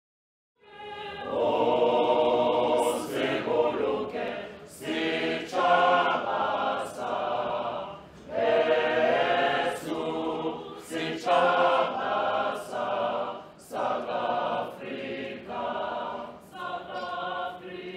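A choir of women and men singing together in sustained phrases separated by short breaths; the singing begins about half a second in.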